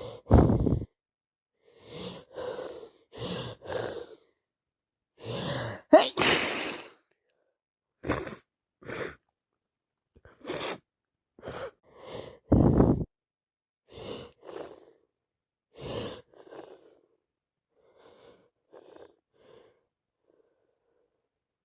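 A woman with a heavy head cold sneezing again and again, some sneezes led in by a quieter in-breath. The loudest sneezes come right at the start, about six seconds in and about thirteen seconds in, and the sounds grow fainter and smaller near the end.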